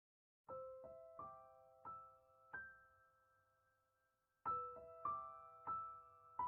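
Soft piano music: a slow phrase of single ringing notes, a pause of about two seconds, then the phrase picks up again near the end.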